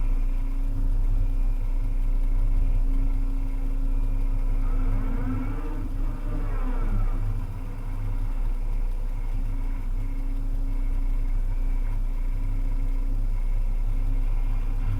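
Volvo EC300E excavator's diesel engine running steadily while working, with a higher whine that rises and then falls in pitch around the middle.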